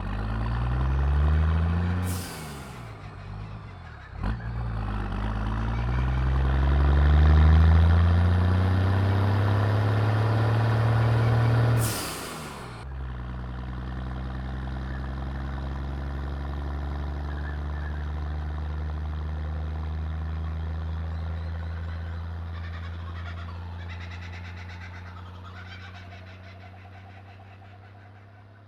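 Turbocharged engine of an 80 Series Toyota LandCruiser revved twice, with a rising pitch each time. A hissing burst of turbo flutter comes as the throttle is released, about two seconds in and again about twelve seconds in. The engine then runs on steadily and fades out, with kookaburras calling faintly near the end.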